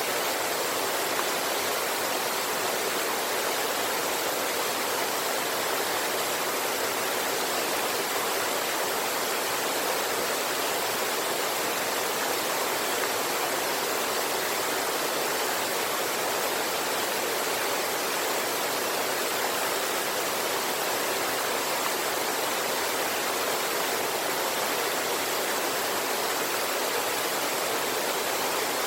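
River water rushing over a waterfall, a steady, unchanging wash of water sound.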